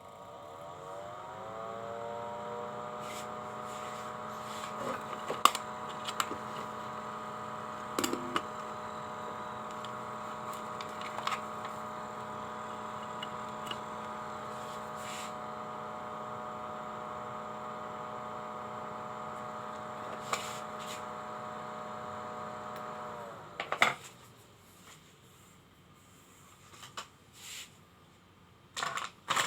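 A small electric motor spins up with a rising whine, runs at a steady pitch for about twenty seconds, then is switched off and winds down. Scattered clicks and light knocks of handling sit over it.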